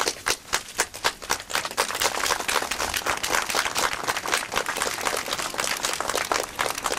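Crowd applauding: scattered claps that swell into dense, steady applause about two seconds in.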